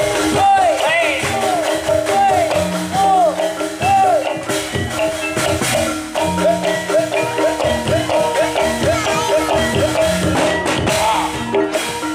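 Javanese gamelan music accompanying a barongan dance: bronze metallophones ringing steady notes over drum strokes, with a melody line that swoops up and down in repeated arcs.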